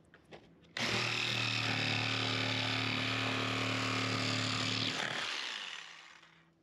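Electric power tool running at steady speed with a constant hum, starting suddenly under a second in and running for about four seconds, then switched off and spinning down over about a second.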